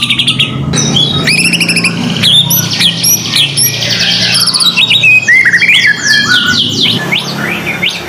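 Caged songbirds singing loudly, several at once: a rapid, varied run of whistles, trills and chirps.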